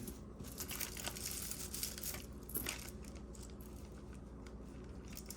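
Crinkling and rustling of plastic packaging as it is handled, busiest in the first three seconds, then fainter scattered handling clicks.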